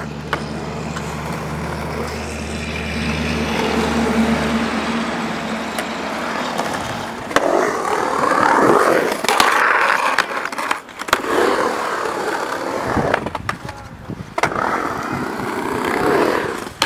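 Skateboard wheels rolling and carving on a concrete bowl, a rushing sound that swells and fades, with a few sharp clacks of the board. A steady low hum runs under it for the first seven seconds or so, then cuts off.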